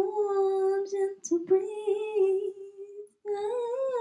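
A woman's voice singing unaccompanied into a handheld microphone, holding long sustained notes. The notes break off briefly about a second in and again about three seconds in, and the pitch rises slightly near the end.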